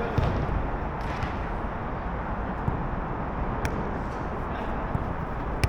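A few sharp knocks of a jokgu ball being struck during a rally, about three in all, over a steady low background rumble.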